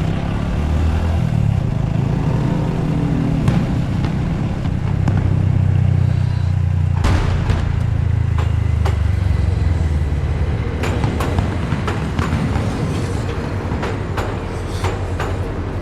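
Honda Cross Cub's single-cylinder four-stroke engine running under way, a loud low drone that shifts pitch twice. Several sharp pops or clicks sound over it in the second half.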